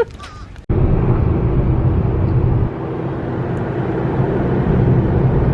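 Steady engine and road noise inside a moving vehicle's cabin, a low rumble that cuts in abruptly about a second in.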